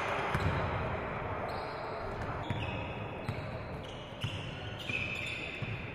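Live game sound from a basketball game in a large gym: the ball bouncing on the wooden court with scattered knocks, short high squeaks of sneakers on the floor, and a faint background of players' voices echoing in the hall.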